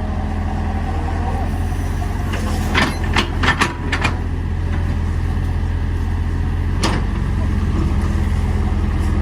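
Excavator diesel engine running steadily at a low drone. A few short knocks come about three to four seconds in and again near seven seconds.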